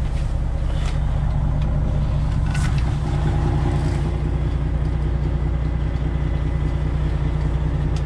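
Detroit Diesel Series 60 12.7-litre engine of a Freightliner Classic XL running at a steady low speed, heard from the cab, with a couple of faint clicks in the first few seconds.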